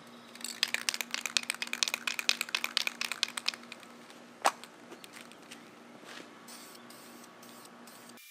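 Aerosol spray-paint can being shaken, its mixing ball rattling rapidly for about three seconds. A single sharp click follows, and near the end comes a faint hiss of paint spraying in short bursts.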